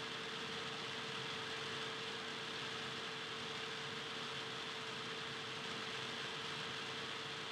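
Steady background hiss with a constant mid-pitched hum running under it, unchanging throughout; no ball bounces, shoe squeaks or voices stand out.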